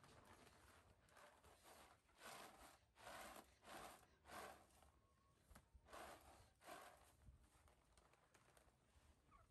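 Faint soft swishing of dried maize kernels sliding and rattling on a woven winnowing tray as it is shaken and sorted by hand, a string of short strokes about half a second apart.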